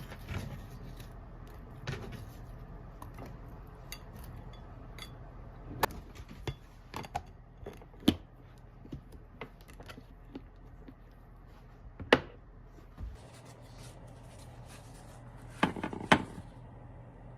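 Dishes and cooking utensils clinking and knocking during kitchen work: scattered light clicks, with sharper knocks about eight, twelve and sixteen seconds in.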